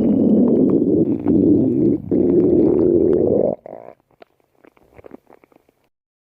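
Stomach growling: a loud, low rumble with a brief break about two seconds in. It stops suddenly at about three and a half seconds, leaving a few faint crackles.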